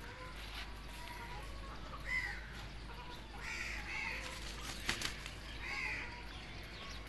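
Short, harsh, cawing bird calls, one about two seconds in, a quick pair around three and a half to four seconds, and another near six seconds, with a sharp tap about five seconds in.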